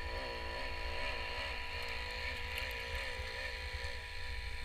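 A motor droning steadily, its pitch wavering up and down about three times a second, with wind rumbling on the microphone.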